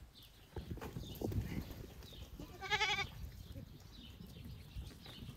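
A single wavering bleat from the flock of sheep about two and a half seconds in, over low scuffling from the animals moving about.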